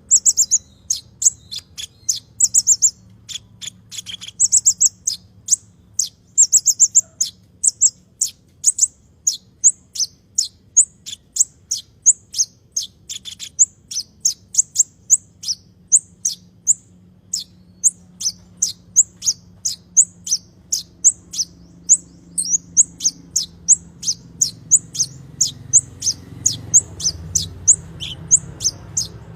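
A small songbird kept as a 'konin' in Indonesian bird-keeping, calling in a long series of short, high chirps. For the first several seconds a longer, fuller note comes about every two seconds; then the chirps run on steadily, about three a second. A faint low hum lies underneath and grows near the end.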